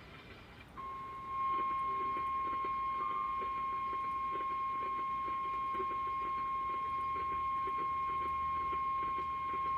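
NOAA Weather Radio 1050 Hz warning alarm tone: a single steady beep that comes in about a second in and holds unbroken, heard through a weather radio receiver. It is the signal that a warning message, here a severe thunderstorm warning, is about to be read.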